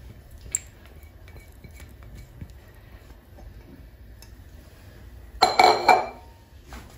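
Silicone spatula scraping batter out of a plastic bowl into a frying pan, with small clicks and clinks. About five and a half seconds in, a loud half-second burst of rustling and knocking.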